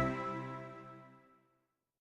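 Background music with a sustained chord fading out, ending in silence about a second and a half in.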